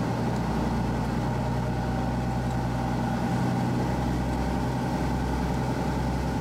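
Tour boat's engine running steadily, a low even hum with no change in speed.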